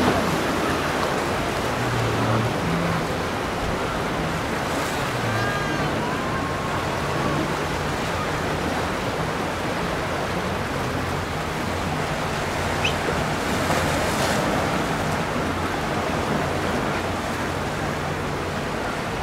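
Steady wash of waves and wind over the water, with the low hum of boat engines coming and going underneath.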